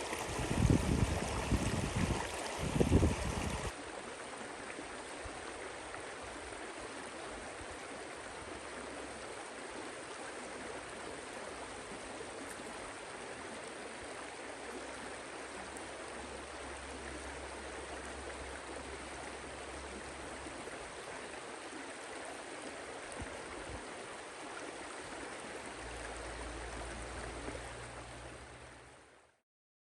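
Low rumbling thumps for the first few seconds, then the steady rush of a flowing stream, which fades out near the end.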